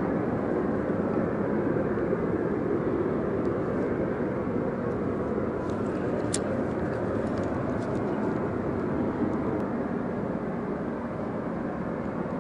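Steady industrial roar from a nearby plant, a constant jet-like background noise.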